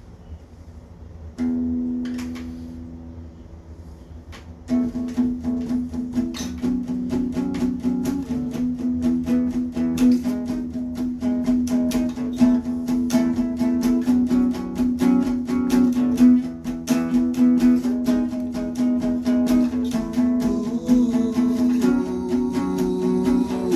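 Acoustic guitar playing: a single chord rings out about a second and a half in and fades, then steady fingerpicked notes start about five seconds in over a held bass note.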